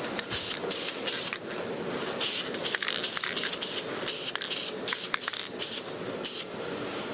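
Aerosol spray paint can hissing in a quick string of short bursts, about two a second, each well under half a second long.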